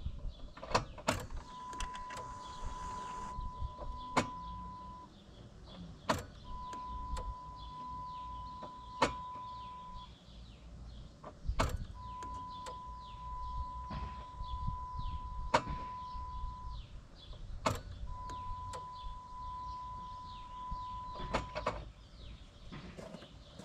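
Electric fuel pump of a 1998 Jeep Grand Cherokee priming four times as the ignition key is switched on and off: each time a steady whine lasting three to five seconds, with a click as it starts and stops. It is building fuel pressure in the rail after a new fuel pressure regulator was fitted.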